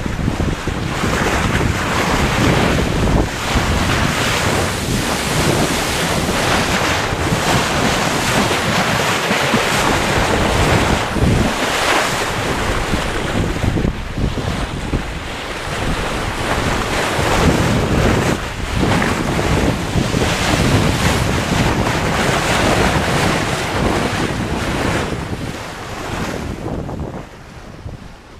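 Wind buffeting the microphone over the rushing and splashing of the bow wave along the hull of an X-99 keelboat sailing fast downwind, swelling and easing with the gusts and waves. The sound fades out near the end.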